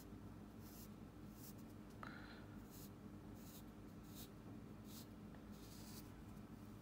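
Pencil scratching on paper as short lines are drawn one after another: about eight quick, faint strokes, roughly one every 0.7 seconds.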